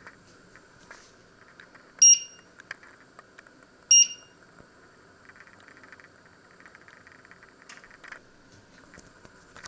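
Two short, loud electronic beeps about two seconds apart from a glass-top electric hob's touch controls, each one acknowledging a press of a touch button as a cooking zone's setting is changed.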